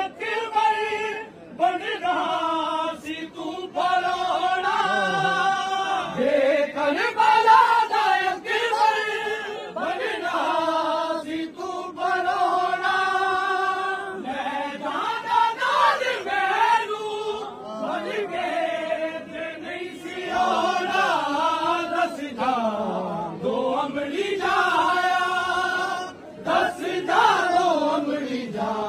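A party of men chanting a Punjabi noha, a Muharram mourning lament, with many voices together. The melody rises and falls in long sung phrases with short breaks between them.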